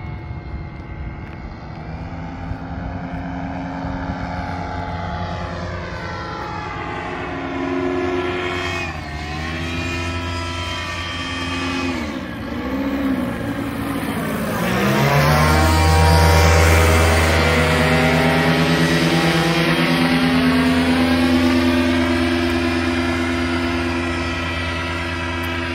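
Paramotor engine and propeller of a powered paraglider running in flight. Its pitch slides down and back up several times as it turns and passes, and it is loudest a little past the middle as it flies low overhead.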